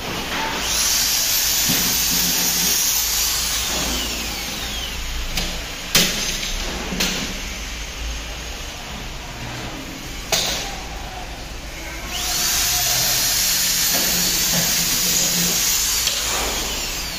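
Corded electric drill drilling into the aluminium frame of a composite panel in two runs of a few seconds, its whine rising as it starts and falling away as it slows. Between the runs come three sharp snaps.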